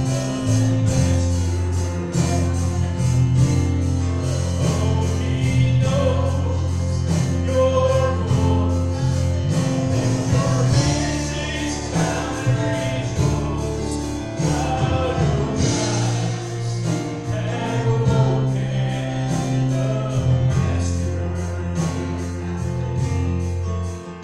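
Gospel song sung by a male lead vocalist with backing singers, over instrumental accompaniment with sustained bass notes and a steady beat.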